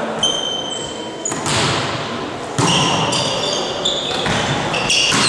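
Volleyball play in a sports hall: about three sharp ball hits ring out in the hall, among short high squeaks of shoes on the court floor and a few scattered voices.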